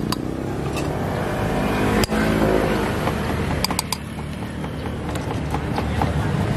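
Street traffic with a motor vehicle engine running close by, and a few sharp metallic clinks of a spoon against stainless steel cups.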